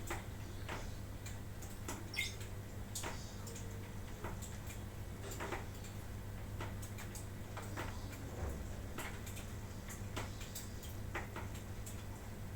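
Irregular light clicks and taps, several seconds apart and uneven in spacing, over a steady low hum, with one brief high squeak about two seconds in.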